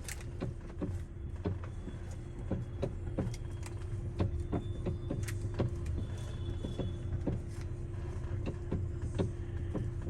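Steering of a 2014 Hyundai i30 with electric column steering clicking and creaking irregularly, many times, as it is turned, over the engine idling and a steady hum. The noise sounds just like a worn steering-column coupling bushing but persists after that bushing was replaced.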